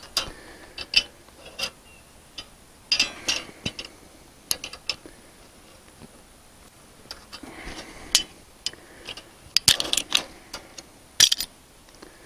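Small wrench turning the nuts of a steel wire rope clip, giving short irregular bursts of sharp metallic clicks and clinks, with a denser cluster near the end as the nuts are run tight.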